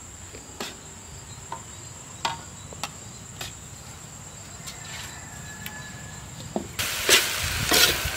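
Metal ladle scraping and tapping in an iron wok as a filling of shredded cabbage, carrot and capsicum is stir-fried: a few light clicks at first, then louder, quicker scraping strokes from about seven seconds in. A steady high insect drone runs underneath.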